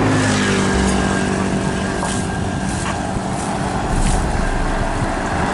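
Road traffic passing close by: a vehicle engine's steady hum for the first few seconds over the rushing noise of tyres and air.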